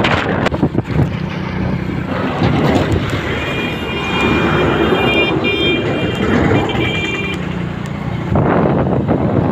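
Road traffic noise: a dense rumble of vehicles on a road, heard while moving along it. A high-pitched steady tone sounds for about four seconds in the middle.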